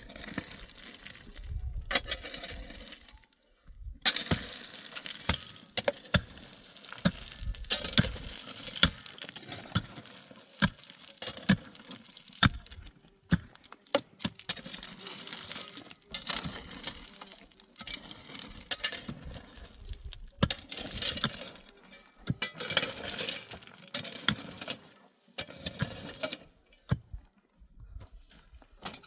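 Stones knocking and clinking against each other as they are handled and set in place. There are many sharp knocks at an uneven pace, with scraping and rubble shifting between them.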